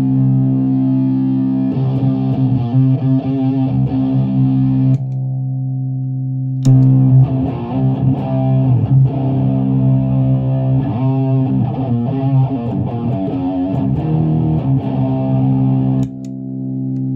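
Heavily fuzz-distorted electric guitar, a '78 Gibson Les Paul Custom through a 50-watt Bridge City Sound Morrison head, droning on one sustained low note with wavering overtones. The bright fuzz cuts out about five seconds in and snaps back loudly a couple of seconds later. It cuts out again near the end as the fuzz pedals are switched, leaving a duller sustained tone.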